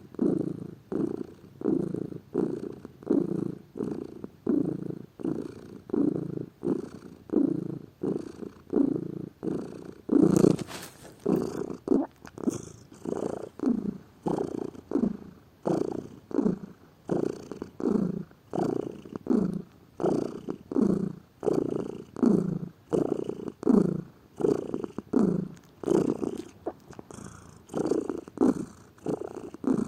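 Domestic cat purring close to the microphone, a steady rhythmic purr that swells and fades with each breath, roughly every three-quarters of a second. One pulse about ten seconds in is louder than the rest.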